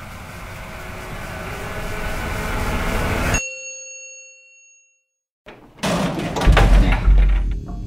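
Film sound design: a swell of sound grows louder and cuts off suddenly into a ringing ding that fades away. After a moment of silence, loud clattering and thumps with a deep bass come in.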